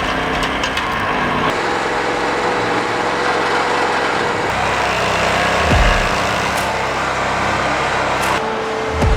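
FSI B31 stump grinder running at work, its engine and cutting wheel making a steady, dense grinding noise, with a low thump about six seconds in and another near the end.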